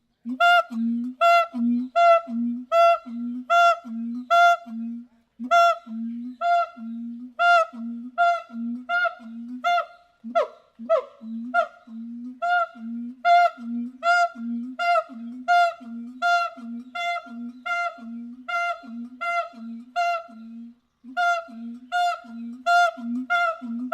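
Monkey calling in a long, even series of short pitched hoots, about three every two seconds, with a couple of falling cries around the middle.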